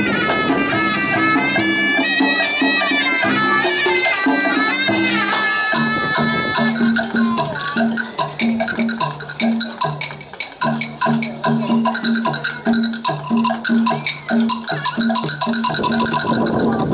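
Live traditional Vietnamese ensemble music accompanying a water puppet show. A high melody plays for the first few seconds, then gives way to a fast percussion rhythm over a repeating two-note low figure.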